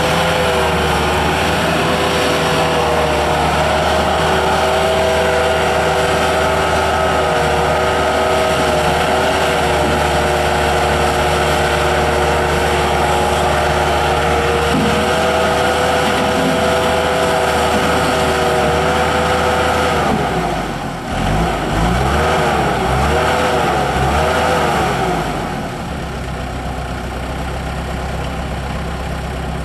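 Bobcat 873 skid steer loader's 73 hp turbo diesel running at high, steady revs. About two-thirds of the way through, the revs dip and swing up and down several times, then settle lower and quieter.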